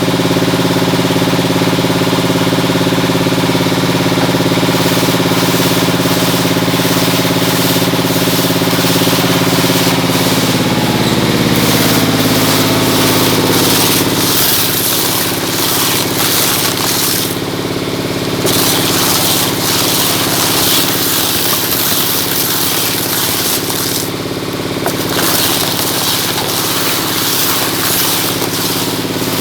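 Scrap shredder machine running with a steady motor hum. About halfway through, its pitch sags under load and a rough grinding, crackling noise of material being shredded takes over, with a couple of brief harsher hissing surges.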